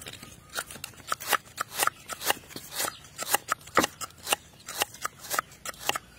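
A cleaver slicing through lemongrass and fresh ginger root and knocking on a wooden chopping board: short, crisp knocks in an even rhythm, several a second.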